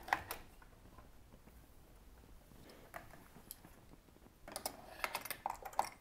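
Table clamps being fitted into the slots under a knitting machine bed and tightened down. Scattered light clicks and knocks, with a quick cluster of them in the last second and a half.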